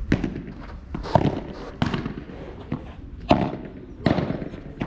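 Padel ball being struck by rackets and bouncing off the court and glass walls: about six sharp pops at uneven intervals.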